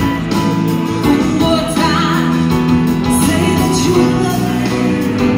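Live music from a band with a woman singing into a microphone, guitar among the instruments.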